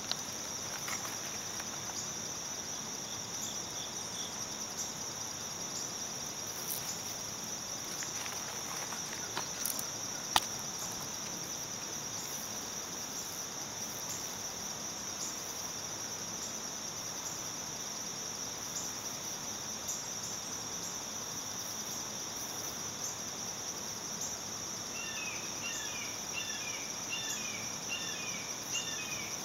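Steady, high-pitched chorus of insects trilling without a break. A single sharp click comes about ten seconds in, and short chirps repeat over the last few seconds.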